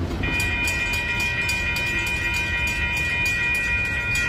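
Train horn sounding one long steady chord of about five seconds over the low rumble of the train. Faint ticks repeat about four times a second, which fit a grade-crossing bell.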